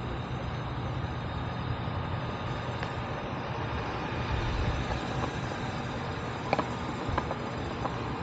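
Steady low rumble of outdoor vehicle traffic noise, with a few light clicks near the end.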